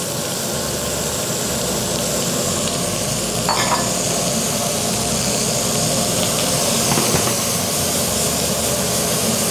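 Chopped bacon sizzling steadily in a hot skillet. A few short clicks, the clearest about three and a half seconds in, come from the tongs against the pan as the bacon is stirred.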